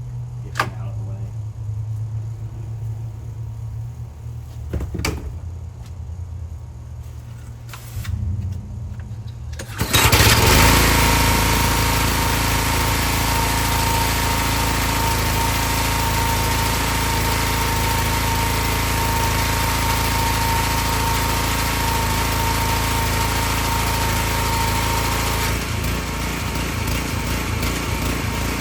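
Small 5 hp Honda engine on a pressure washer starting abruptly about ten seconds in and then running steadily with a constant high whine, now fitted with a new spark plug to cure its stalling. Before it starts there is a low rumble and a few sharp clicks.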